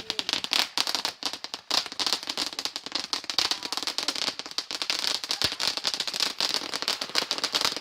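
Consumer firework going off with dense, rapid crackling: a continuous run of many small pops.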